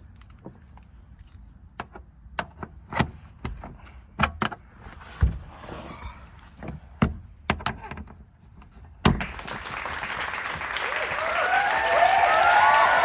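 A series of sharp clicks and knocks as the air compressor and its hose are handled. Then, about nine seconds in, a loud click, and the Rivian R1T's built-in air compressor starts, its hiss and whine growing louder and steadier.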